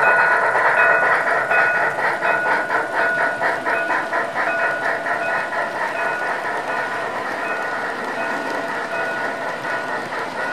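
HO-scale model freight cars rolling past on the track, with a steady rolling noise and short repeated clicks and rings from the wheels. Under it, the rhythmic steam chuffing from the departing locomotive's sound decoder grows fainter over the first few seconds.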